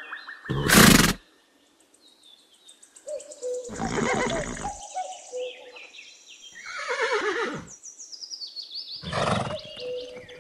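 Horses neighing: a long whinny falling in pitch near the middle, with shorter calls around it and a sharp, loud noisy burst about half a second in.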